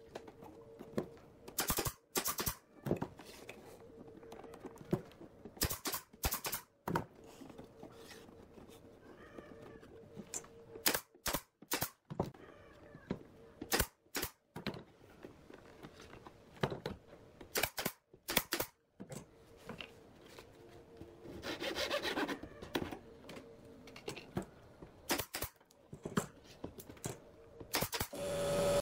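Pallet-wood basket and thin wooden band handled and fitted by hand: scattered sharp wooden clicks and knocks, often in pairs, with a few seconds of wood rubbing and scraping about three-quarters of the way through.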